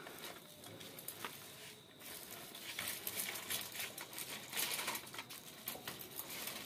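Baby walker's small plastic wheels rolling over rough concrete: an irregular clatter of clicks and rattles that grows busier and louder about two seconds in.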